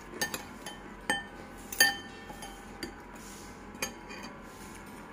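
Metal fork and spoon clinking against a ceramic bowl while twirling instant noodles: a string of sharp, ringing clinks, the loudest a little under two seconds in.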